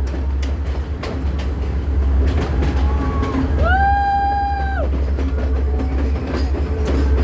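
Passenger train running along the track with a steady low rumble and irregular clicking of wheels over the rails. About three and a half seconds in, the train's horn sounds once for about a second, sliding up to a steady pitch and dropping off at the end.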